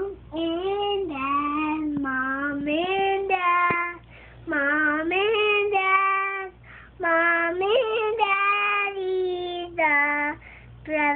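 A young child singing, holding long notes in short phrases with brief pauses between them.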